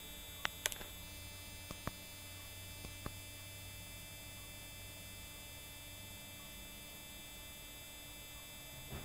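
Faint steady electrical hum, low in pitch, that weakens about halfway through, with a few soft clicks in the first three seconds.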